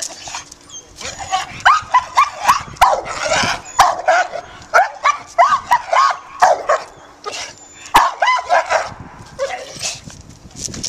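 American Bulldog–pit bull cross barking and yelping in quick succession, high-pitched with a brief lull after about seven seconds. This is a highly leash- and dog-reactive dog reacting to the sight of another dog.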